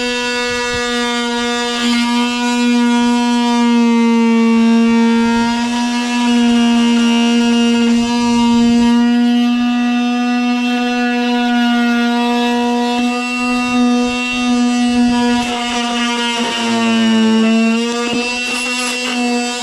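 Cordless oscillating multi-tool running steadily with a loud, even buzz as its blade cuts through vinyl siding trim; the pitch sags briefly near the end as the blade bears into the vinyl.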